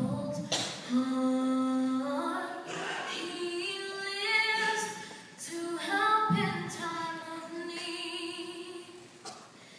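A young woman's solo voice singing a slow gospel hymn, holding long notes between phrases. No instrument is heard.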